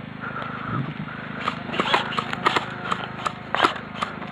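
Airsoft electric rifle firing single shots in quick succession: sharp clicks about three or four a second, starting about a second and a half in.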